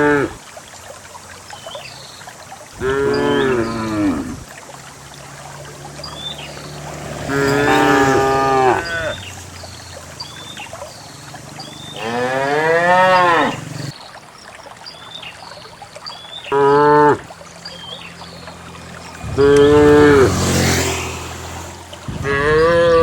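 Herd of cattle mooing repeatedly: about seven drawn-out moos, each one to two seconds long, several rising and falling in pitch, with short gaps between them.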